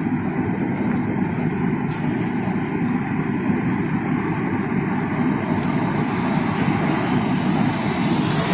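Car driving at speed, heard from inside the cabin: a steady low rumble of tyres on the road with engine hum.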